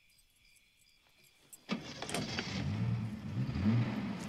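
Quiet at first, then about a second and a half in a Mercedes-Benz convertible's engine starts suddenly and catches. It runs and revs up, rising and falling in pitch as the car pulls away.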